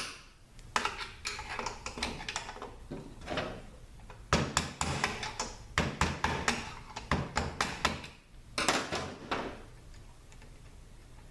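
Sharp metallic clicks and clatter in several bursts from hand tools and steel parts being worked on an automatic transaxle while a loosened nut is spun out.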